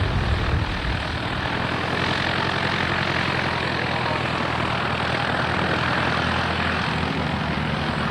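Engine and propeller of a Citabria light taildragger airplane running at steady power, a continuous drone whose pitch shifts slightly about seven seconds in.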